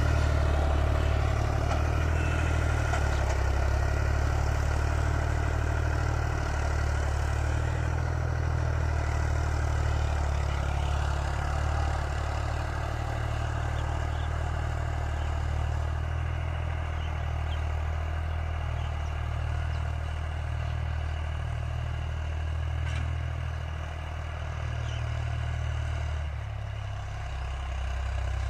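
Ghazi tractor's diesel engine running steadily under load while pulling a disk harrow through soil, with some clatter from the harrow.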